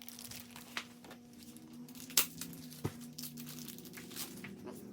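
Paper and plastic toy packaging being handled and unfolded, crinkling and rustling in scattered bursts, with a sharp click a little over two seconds in.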